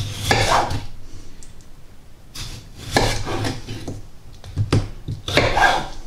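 Kitchen knife slicing through a raw, unpeeled potato, each cut ending in a knock on a wooden chopping board; about half a dozen cuts at uneven intervals.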